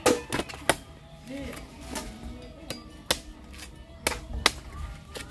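Irregular sharp chopping strikes, about nine of them, of a blade hacking into a coconut, the hardest right at the start.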